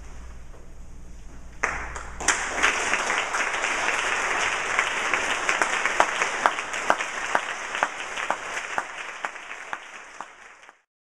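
Quiet room hum, then audience applause breaks out suddenly about a second and a half in, with some single claps standing out. It thins and fades, then cuts off just before the end.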